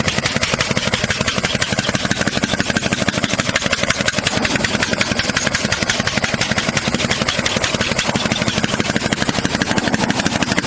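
Heavy machinery running steadily and loudly with a rapid, even pulsing, like an engine at idle.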